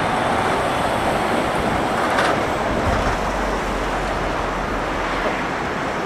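Boeing 767 jet engines on the landing roll, heard as a steady rushing noise mixed with strong gusty wind on the microphone, with a brief louder hiss about two seconds in.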